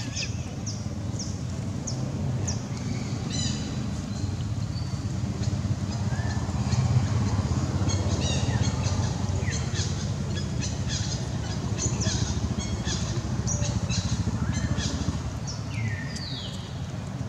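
Small birds chirping, many short high calls with a few falling whistled notes, growing busier about six seconds in. Under them runs a steady low rumble.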